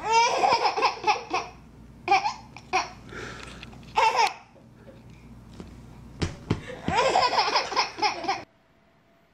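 Baby belly-laughing in bursts: a long run of rapid laughter at the start, short bursts about two and four seconds in, and another long run near the end. A single thump comes just before the last burst.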